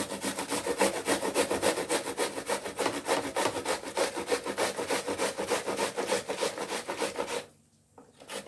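Onion being grated on a stainless-steel grater: fast back-and-forth rasping strokes, several a second. The strokes stop briefly near the end, then start again.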